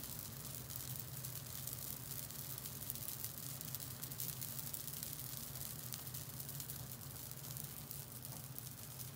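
Yaki manjū buns sizzling and crackling steadily on the grill, with a steady low hum underneath.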